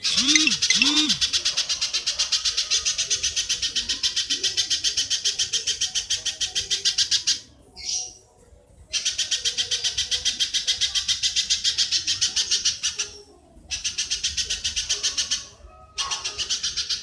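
Rapid, dry chattering call of a bird from a songbird-training recording, about ten notes a second, in four bouts a few seconds long with short breaks between them. Two short, low calls sound under it about a second in.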